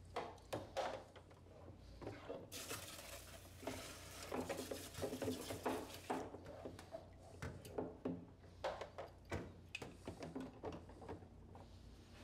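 Plastic suction tube adapters and tubing handled in a plastic bucket of cleaning solution: scattered light knocks and rattles, with some water splashing.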